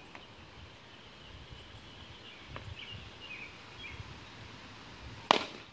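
A plastic wiffle ball bat hitting a wiffle ball: one sharp, loud crack about five seconds in, over faint bird chirps.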